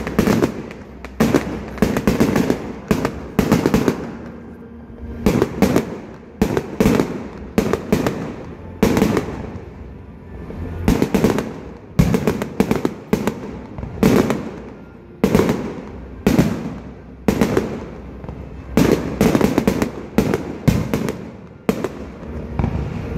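Fireworks display: aerial shells launching and bursting in quick succession, a steady run of sharp bangs, often two or three close together, each dying away in an echo.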